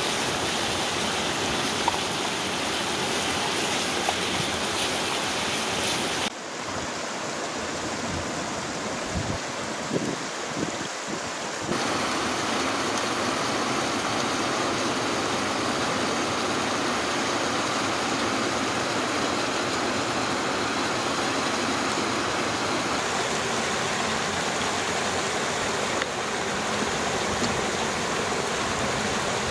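Steady rushing of a mountain stream tumbling over rocks in a small waterfall. It thins out for a few seconds between about six and twelve seconds in, then returns at full strength.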